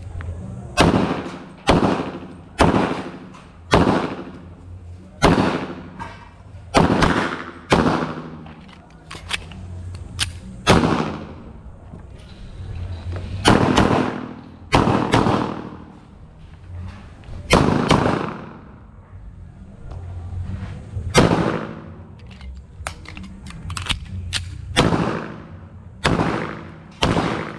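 A semi-automatic pistol firing a timed practical-shooting string: about twenty shots, mostly in quick pairs with some singles, with pauses of one to three seconds between groups. Each shot rings on briefly.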